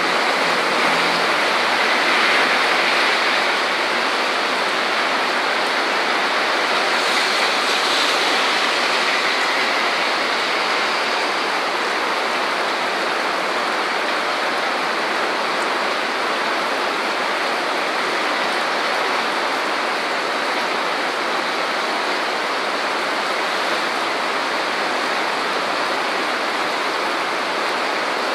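Heavy rain pouring onto a flooded city street, a steady loud hiss, with car tyres swishing through the standing water. A little louder in the first few seconds as a vehicle passes close.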